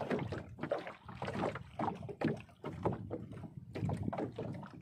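Sea water splashing and lapping irregularly around a small fishing boat.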